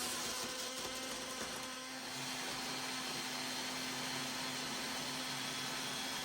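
A small electric motor running steadily, with a steady hum in it.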